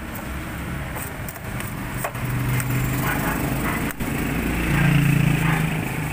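A small engine running steadily, swelling for a moment a little after the middle, with a few sharp clicks from the metal ribs and frame of an automatic umbrella being handled and folded.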